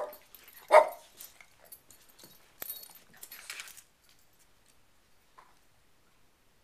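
Two small Chihuahua-mix dogs play-fighting: two short, loud barks right at the start and just under a second in, then a stretch of scuffling about three seconds in.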